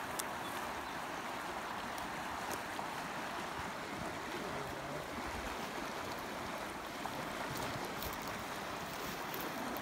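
Fast river current rushing steadily past the bank.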